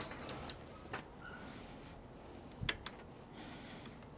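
A few faint clicks and knocks from handling tools and bicycle parts, the loudest a quick double click about two and a half seconds in.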